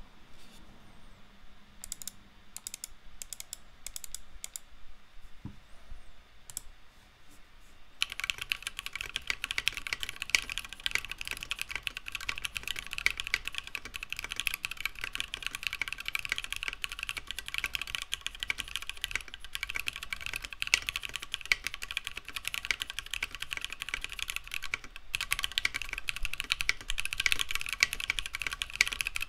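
Typing on a custom 60% mechanical keyboard: Osume Sakura keycaps on Lavender switches, FR4 plate, Tofu60 case. Scattered single keypresses at first, then fast continuous typing from about 8 seconds in.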